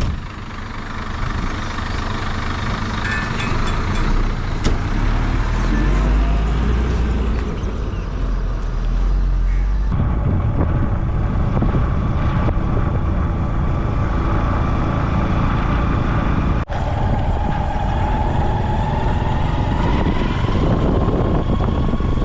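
Motor vehicle running on the road, heard from on board: steady engine and road rumble, heaviest in the first few seconds, with a sudden change in the sound about ten seconds in and a brief dropout later on.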